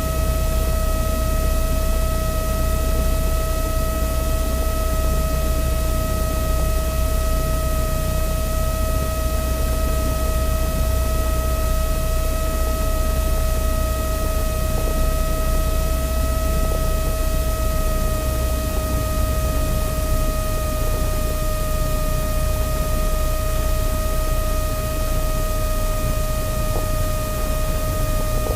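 Light airplane's piston engine running at low power while taxiing, heard inside the cabin as a steady low drone over hiss, with a constant high whine.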